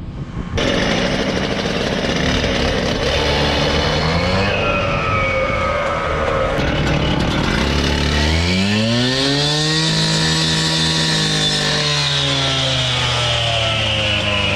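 Small two-stroke power-saw engine running, then revving up about eight seconds in and holding at high speed before easing off slightly.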